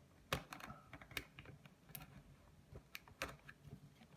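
Small scissors snipping through a sticker seal on a cardboard product box, with the box being handled: irregular light clicks and taps. The sharpest come about a third of a second in and just past three seconds.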